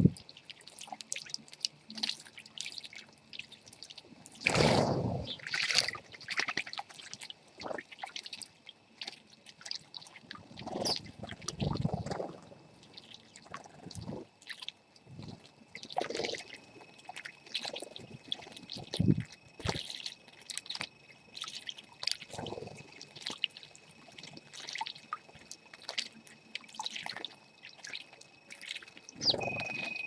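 House sparrows bathing in shallow water: irregular bursts of splashing as they flap their wings in it, with short chirps between. A faint steady high tone comes in about halfway through.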